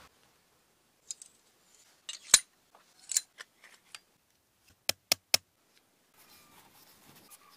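Sharp metallic clicks and clinks of sword fittings and tools being handled. The loudest comes about two seconds in, three quick clicks close together follow about five seconds in, and a faint rustle comes near the end.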